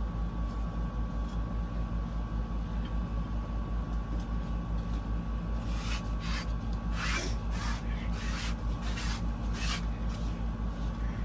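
Curtain fabric and rings being slid and adjusted on a curtain rod: a run of short rustling, scraping strokes from about six seconds in, over a steady low hum that pulses evenly throughout.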